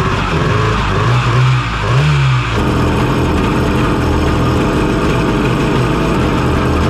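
1994 Kawasaki jet ski's two-stroke engine running on its first start after being reinstalled. The pitch wavers and rises briefly for the first couple of seconds, then settles into a steady run.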